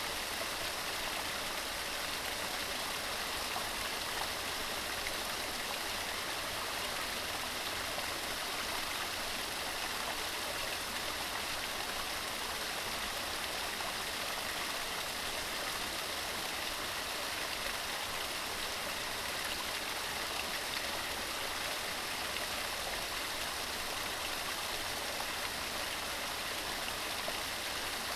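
Mountain stream running steadily over rocks, a continuous even rush of water.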